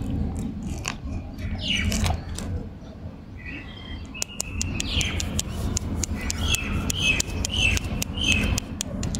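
A plastic candy wrapper crinkles in the first two seconds or so, then small birds chirp repeatedly, with sharp clicks among the chirps, over a steady low rumble.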